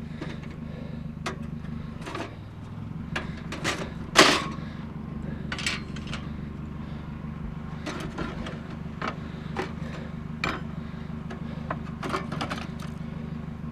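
Scrap metal pieces knocking and clinking as they are picked up and handled, a dozen or so separate clanks with the loudest about four seconds in, over a vehicle engine idling steadily.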